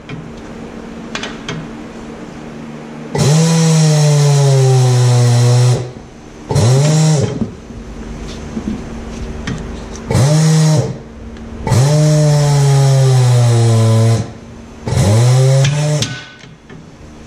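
Tire changer's turntable motor running in five bursts as the tire bead is worked onto a steel wheel. It gives a loud hum whose pitch sweeps up at each start and sags slightly while it turns.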